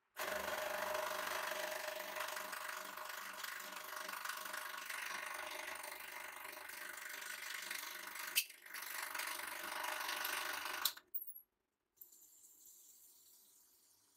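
Hydraulic press pump motor running steadily while the ram comes down and crushes a short steel pipe, with a single sharp snap about eight seconds in. The motor cuts off suddenly about three seconds later, and a fainter noise follows as the ram goes back up.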